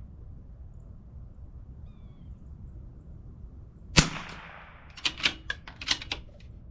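A single .22 LR shot from a CZ 457 bolt-action rimfire rifle, a sharp crack with a short tail about four seconds in, followed about a second later by a quick run of metallic clicks as the bolt is worked to eject the case and chamber the next round.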